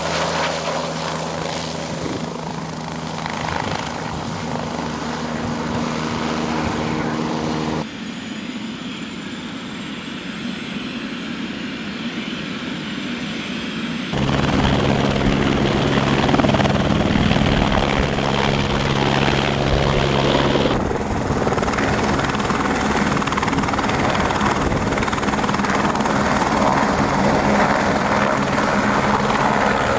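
Turbine helicopters running, in several cut-together clips: a Bell 407-type helicopter flying off low, then an Airbus AS350 with its three-blade rotor turning, then lifting into a hover. Steady rotor beat and turbine whine, changing abruptly about 8, 14 and 21 seconds in and louder after the second change.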